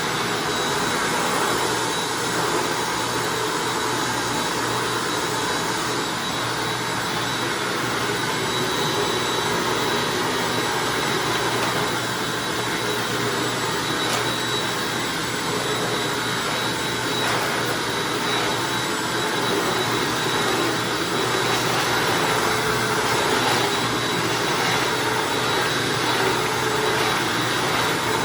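Hoover Anniversary upright vacuum cleaner running steadily while being worked over a hard floor: an even motor and airflow noise with a thin high whine on top.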